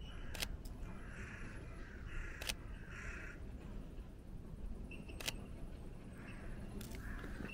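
Sony a7III's shutter clicking four times, a second or two apart. Between the clicks a bird calls harshly several times in the background.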